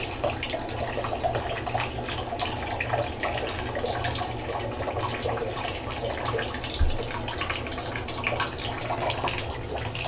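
Water running and splashing in a bathtub, with many small splashes and drips throughout. A brief low thump about seven seconds in.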